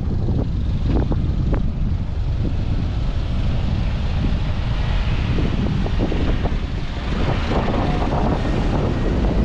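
Wind buffeting the microphone: a steady low rumble with irregular gusts.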